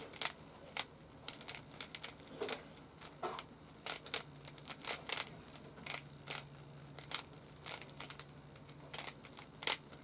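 A Rubik's cube being scrambled by hand, its plastic layers turned in quick succession, making an irregular run of clicks and clacks.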